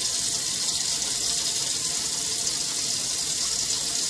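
Kitchen faucet running steadily into a sink, an even hiss of water.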